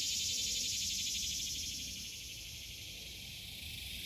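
A steady, high-pitched chorus of insects, a dense rapid trill that eases off slightly about two seconds in.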